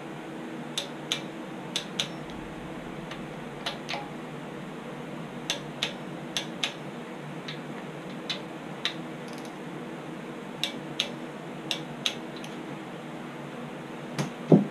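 Inch-pound click-type torque wrench breaking over in short double clicks, about ten times, as the thermostat housing bolts reach their torque spec. A steady hum runs underneath, and there is a heavier knock near the end.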